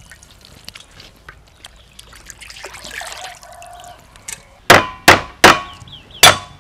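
Four hard knocks of a blade on a thick wooden chopping block, smashing garlic cloves, in the last two seconds. Before them come soft clinks and handling sounds.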